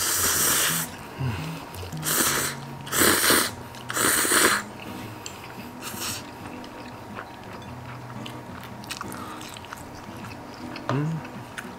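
A person slurping bibim-myeon noodles, loudly and with a wet sound. There are four or five noisy slurps in the first few seconds, then quieter chewing with small wet clicks. Light background music plays underneath.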